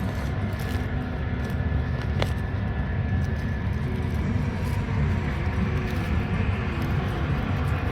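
Corn-harvesting farm machinery running: a steady low engine rumble. A single sharp click about two seconds in.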